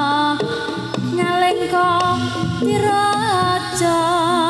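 Live jaranan accompaniment music: a high melody line held in long, wavering notes over regular percussion strokes.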